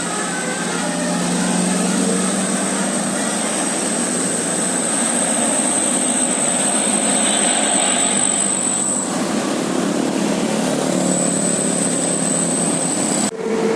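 A large bus running with heavy, steady engine and road noise, with a thin high whistle over it that drops out about nine seconds in and returns about two seconds later.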